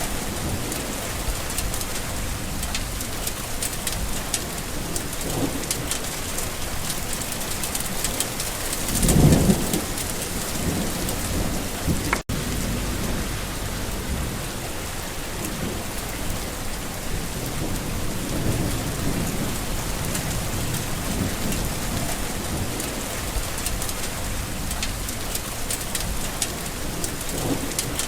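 Steady rain falling on surfaces, with one short low rumble of thunder about nine seconds in, the loudest moment. The sound drops out for an instant a few seconds later.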